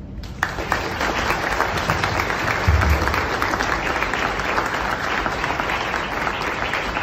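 An audience applauding, breaking out just after the start and holding steady, with a dull low thump about three seconds in.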